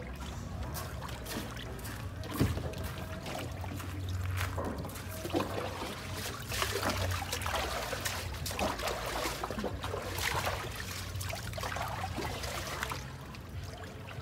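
Water trickling and pouring in uneven splashes as a dog is wetted and washed by hand.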